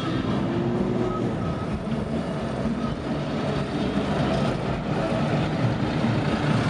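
Bus running on the move: a steady rumble of engine and road noise.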